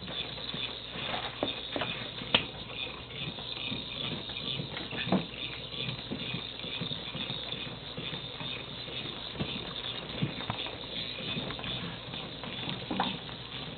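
Motorized toy ball running and rolling on a tile floor: a steady rattling whir, with scattered clicks and a few sharper knocks as it bumps about.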